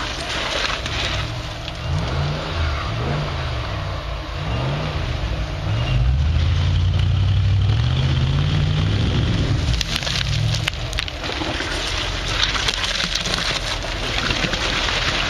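Rock buggy's engine revving in repeated short rises and falls as it crawls up a rock ledge, with a longer held rev about six seconds in. A cluster of sharp cracks and crunching comes about ten seconds in.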